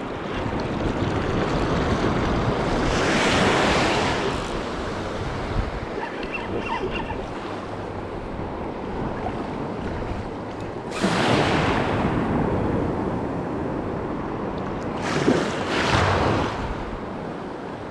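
Ocean surf breaking and washing up the beach, with wind buffeting the microphone. The wash swells louder three times: a few seconds in, just past the middle, and near the end.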